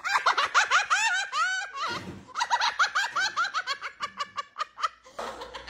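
A person giggling in quick, high-pitched bursts, two runs of laughter with a short break about two seconds in.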